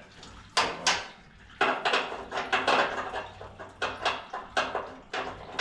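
Metal hand tools and parts clinking and clattering in a run of sharp, irregular clinks, thickest through the middle.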